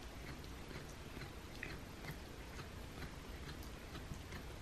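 A cat chewing and biting off blades of wheatgrass: faint, irregular little clicks over a low steady background hum.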